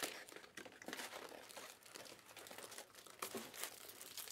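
Plastic wrapping crinkling and tearing as hands open a sealed Panini Optic Fast Break trading card box, with irregular crackles and a few sharper snaps.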